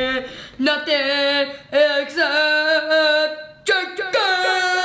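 A boy singing the words 'nothing except chicken' as three long, drawn-out held notes, each sliding up into a steady pitch.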